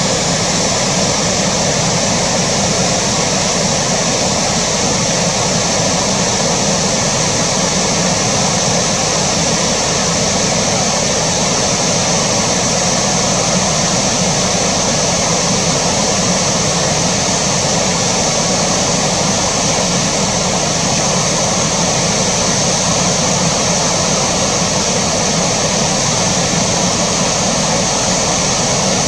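Steady, unbroken rushing noise of flowing water.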